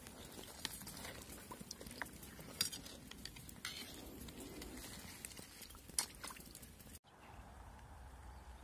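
A metal utensil stirring crayfish in a large aluminium pot of water, with a few scattered sharp clinks against the pot. The clinking stops near the end.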